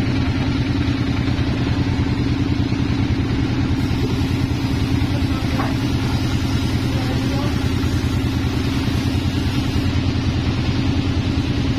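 Sawmill's stationary engine running steadily at a constant speed, with a fast, even throb.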